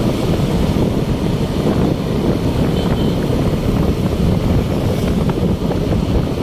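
Wind buffeting the microphone on a moving motorcycle, a steady loud rumble with the motorcycle's running and road noise beneath it.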